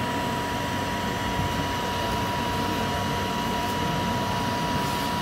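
Steady machine hum with a constant whining tone held throughout.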